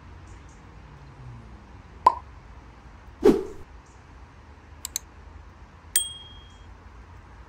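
Tableware being handled during a meal: a light clink about two seconds in, a louder, duller knock a second later, two small ticks, then a short ringing metallic ding about six seconds in.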